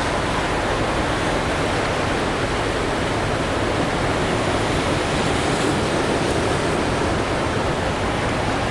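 Ocean surf washing steadily: an even, unbroken rushing with no single wave standing out.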